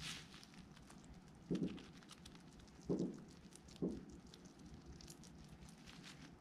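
Pet hedgehog moving about and foraging on a nylon playpen liner: light crackling and rustling, with three soft thumps about one and a half, three and four seconds in.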